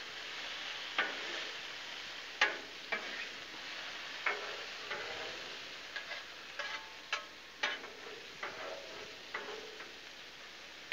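Diced potatoes and pork cube steaks sizzling in oil on a Blackstone flat-top griddle. A metal spatula scrapes and clicks against the steel cooking surface at irregular moments as it turns the potatoes.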